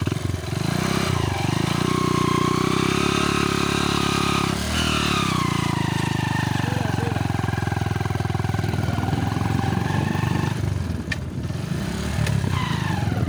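Motorcycle engine running on the move, its pitch shifting with the throttle. There is a brief break and drop in pitch about four and a half seconds in, and again about ten and a half seconds in.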